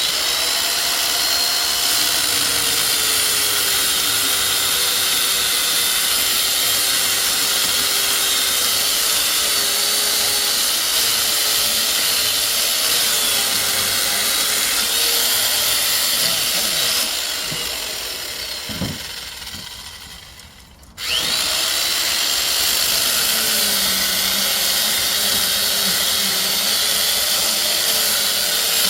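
Power tool motor running steadily, its pitch wavering as if working under load. It dies away from about 17 to 20 seconds in, then starts again suddenly about a second later and runs on.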